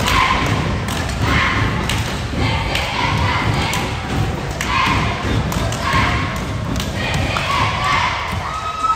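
Repeated thuds echoing in a large gymnasium, with voices among them. A steady high tone begins near the end.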